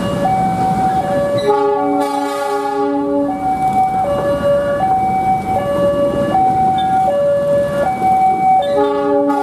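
Railway level-crossing warning siren alternating between a higher and a lower note, each held about three-quarters of a second. A train horn sounds a multi-note chord for about two seconds, starting about a second and a half in, and sounds again near the end as the locomotive approaches.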